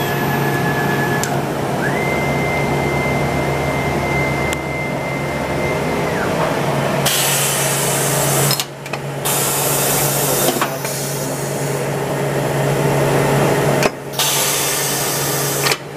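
AXYZ 4012 CNC router working through an automatic tool change. A high machine whine rises to a steady pitch, holds, and falls away about six seconds in. Then a loud steady hiss of compressed air from the pneumatic quick-change spindle and tool changer takes over, broken by short pauses, all over a steady low machine hum.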